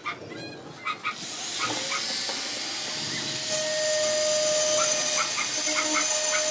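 Handheld mini electric engraving pen grinding into the glass of a bottle, starting about a second in. It makes a steady hiss, with a thin, steady whine coming in midway.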